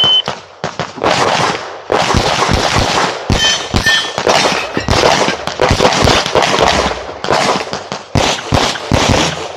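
A short electronic beep from a shot timer, then a CZ Shadow 2 9mm pistol fired fast, in pairs and strings of shots with short breaks between them. A brief metallic ringing comes about three and a half seconds in.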